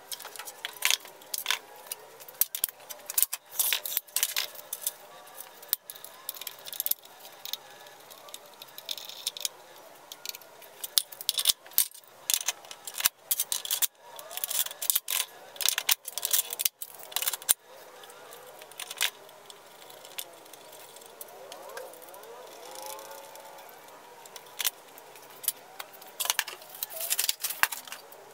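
Metal saw parts (clamps, slides and fittings) being handled and fitted on a steel workbench: irregular clinks, clicks and rattles.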